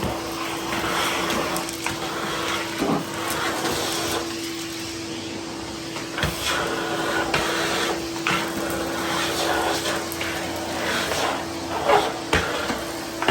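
Ridgid 16-gallon wet/dry shop vac running steadily with a constant motor whine, while chunks of broken cement and debris are sucked up, clattering and knocking irregularly through the hose.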